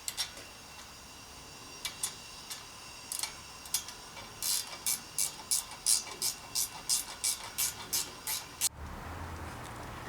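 Sharp mechanical clicks, a few scattered at first, then a steady ticking of about three a second that cuts off abruptly near the end.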